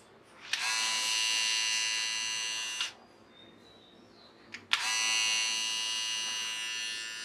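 Electric beard trimmer buzzing: switched on about half a second in, off again just before the three-second mark, then back on with a click near five seconds.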